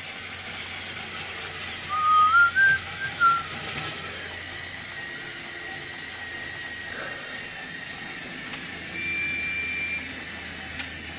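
A short whistled phrase of a few clear notes, stepping up and then down, about two seconds in, over a steady low hum and hiss. A brief higher whistle tone comes near the end.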